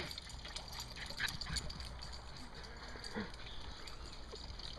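Silky terrier dashing about on grass, making irregular short scuffs and rustles as it runs, over a steady low rumble.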